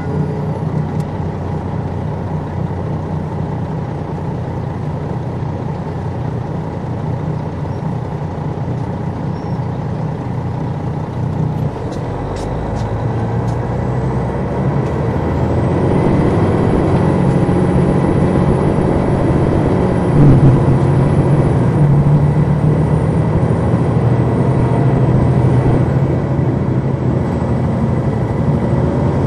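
Detroit Diesel Series 60 diesel engine of a 2002 MCI D4000 coach heard from on board, running steadily. From about twelve seconds in its note changes and grows louder, and a thin high whine joins it until near the end.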